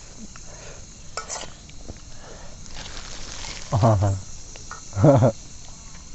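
Two short vocal sounds from a man, about four and five seconds in, with light clicks and scrapes of eating utensils between them.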